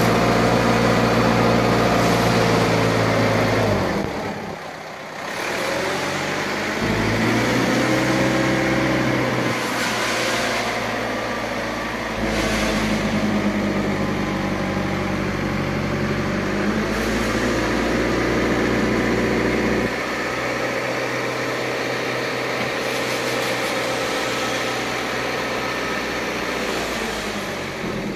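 Engine of a truck-mounted crane running steadily, its pitch sliding up and down at times. The sound drops and changes abruptly several times.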